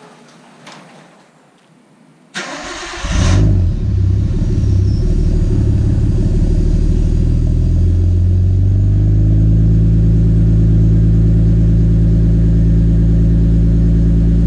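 Nissan RB20DET turbocharged straight-six in a Skyline R32 being started: the starter cranks for about a second, the engine catches and flares, then settles into a steady idle. This is a cold start after winter storage.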